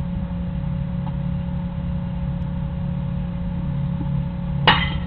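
A steady low hum throughout, then near the end one sharp, briefly ringing crack of a bat hitting the pitched baseball.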